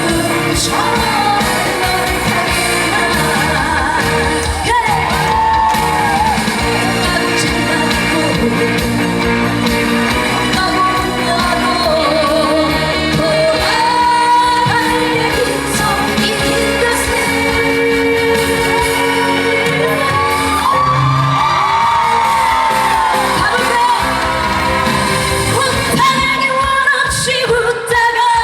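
A woman singing a trot song live over backing music.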